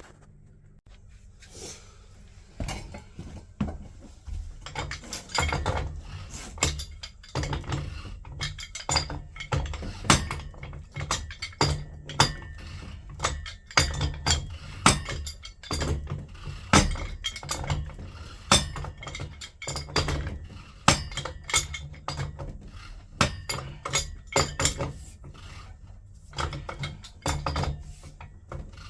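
Metal hand tools clinking and clicking against pipework and fittings, in many sharp, irregular knocks over a steady low hum.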